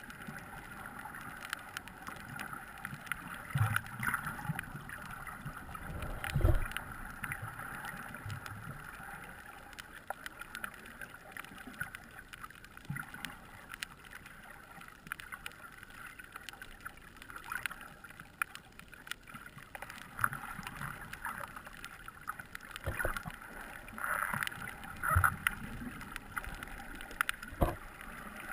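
Muffled underwater sound through a camera's waterproof housing: a steady rush of water with scattered clicks and a few dull thumps, the loudest about six seconds in and another near the end.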